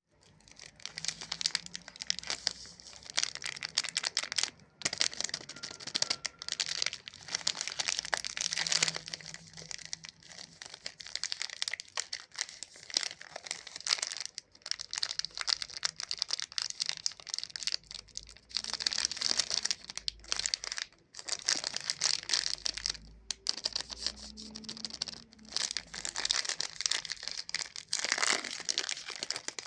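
Close-up crinkling and crackling of a Chupa Chups lollipop's plastic wrapper being handled, going on in stretches with a few short pauses.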